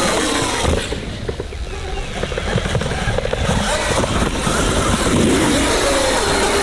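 Sur-Ron electric dirt bike being ridden over dirt and jumped, its motor whine rising and falling in pitch.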